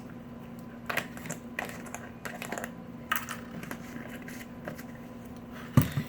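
Light, irregular clicks and taps of small objects being handled, over a steady low hum, with a louder thump near the end.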